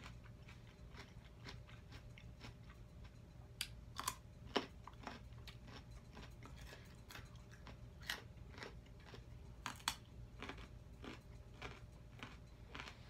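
Close-up biting and crunching of a raw carrot stick dipped in ranch, with crisp crunches throughout. The sharpest bites come about four seconds in and again around eight and ten seconds in.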